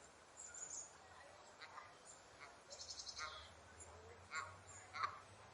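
Geese honking in faint, short, scattered calls, with a quick high chatter about three seconds in.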